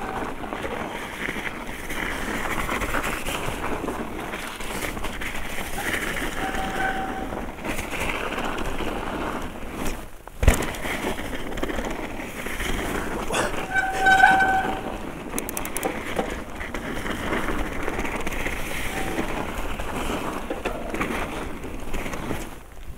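Mountain bike rolling over a snowy trail, with steady tyre and riding noise and the squeaky brakes squealing briefly a few times, loudest about 14 seconds in. A sharp knock about 10 seconds in.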